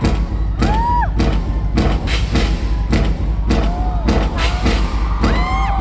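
Music: an instrumental passage of a hip-hop track with a heavy, steady bass line and a regular drum beat. A few short rising-and-falling melodic swoops sit over it.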